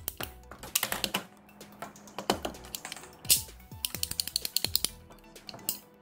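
Ratcheting pipe cutter clicking irregularly as its blade is squeezed through grey PVC pipe, with a louder crack about three seconds in as the pipe is cut through, over background music.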